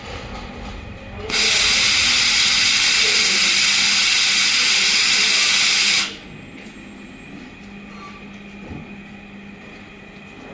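Automatic laser welding machine welding a 33×2 mm stainless steel tee pipe fitting: a loud, steady hiss starts about a second in and cuts off sharply about five seconds later, over a low steady machine hum.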